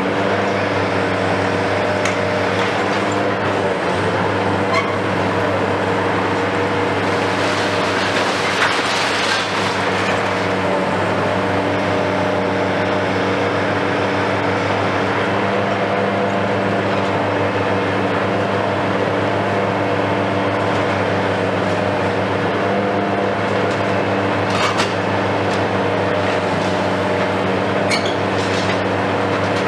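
Hitachi KMC 520 BTV high-reach demolition excavator's engine and hydraulics running steadily under load, with occasional sharp cracks and crunches of concrete as its demolition tool breaks into the building.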